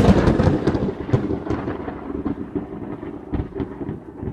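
Thunderclap sound effect: a sharp crack at the start, then a crackling rumble that slowly fades away.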